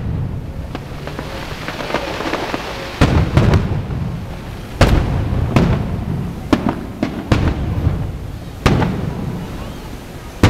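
Aerial fireworks shells bursting overhead: about eight sharp booms at irregular intervals, each trailing off in a rumble.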